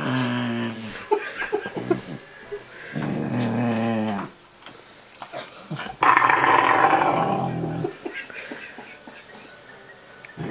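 Rottweiler making low, drawn-out grumbling "talking" sounds while being cuddled and petted. One grumble falls in pitch, and a louder, higher call comes about six seconds in and lasts about two seconds.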